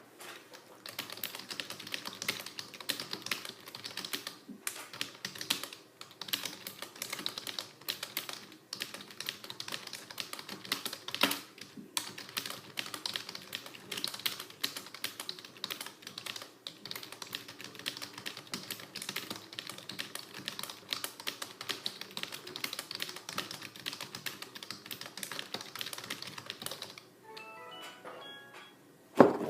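Fast, steady typing on a computer keyboard, around 100 words a minute, with a few brief pauses. About 27 seconds in the typing stops, a quick rising run of short notes plays, and a single loud knock follows.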